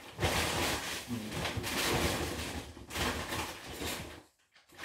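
Plastic shopping bags rustling and crinkling as hands rummage in them, with a brief pause near the end.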